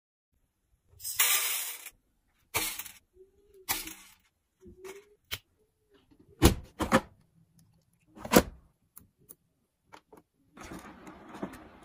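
Loading and setting a Blomberg front-loading washing machine: towels rustling, then a few sharp knocks and clicks from the door and drum, and light clicks of the control-panel buttons being pressed near the end.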